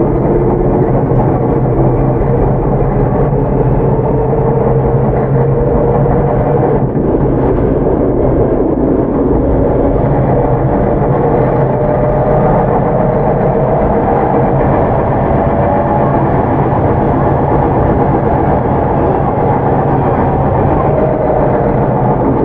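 Tokyu 9000-series commuter train running at speed, heard from inside the car: a steady rumble of wheels on rail with the tones of its early Hitachi GTO-VVVF inverter and traction motors slowly rising in pitch.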